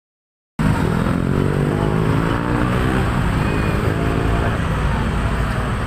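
Large bus's diesel engine running close by, a low drone that starts abruptly about half a second in and gives way to a rumbling road noise after about three seconds.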